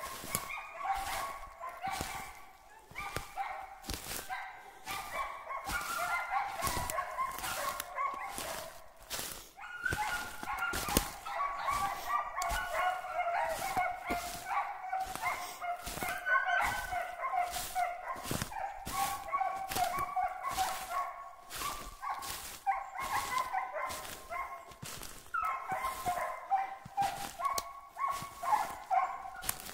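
Hunting dogs barking almost without a break, a fast run of repeated barks as they bay at a squirrel up in the trees.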